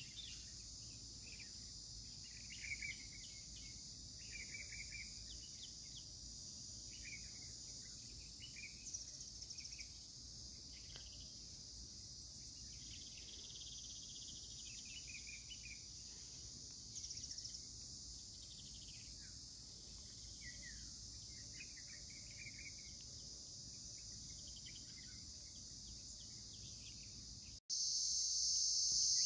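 A steady, high-pitched chorus of insects with scattered short bird chirps and calls over it. Near the end there is an abrupt cut, and the insect chorus becomes much louder.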